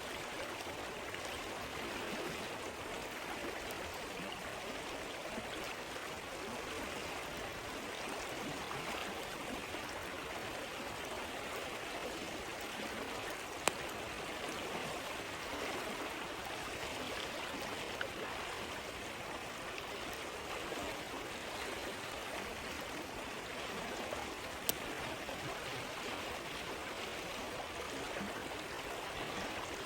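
Stream water flowing and babbling steadily, with three sharp, isolated pops from the campfire spread across the stretch.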